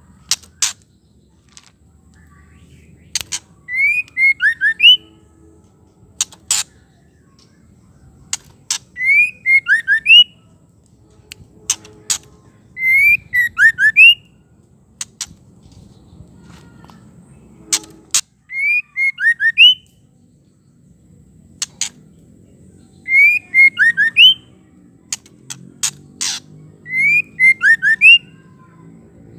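Female white-rumped shama calling over and over. Each time, a few sharp clicks are followed by a quick phrase of short whistled glides, and the pattern repeats about six times, roughly every four to five seconds.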